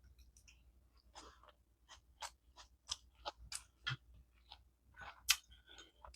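A person chewing food close to the microphone, with irregular crisp crunches and mouth clicks; the sharpest crunch comes about five seconds in.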